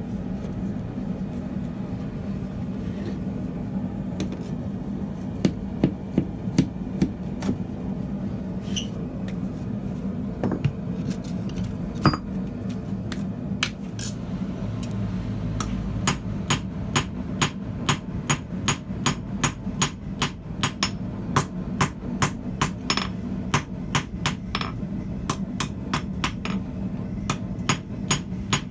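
Hand hammer forging a red-hot steel bar on a steel anvil. A few separate blows come in the first half, then a steady run of strikes about two a second, over a steady low hum.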